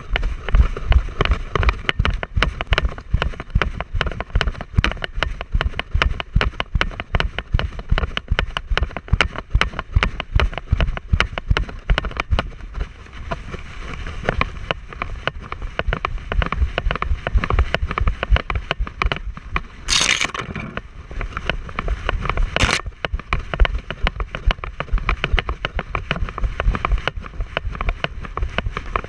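Camera mount strapped to a trotting dog, thumping and rattling in a rapid, steady rhythm with each stride. Two brief loud rushes of noise break in near the end.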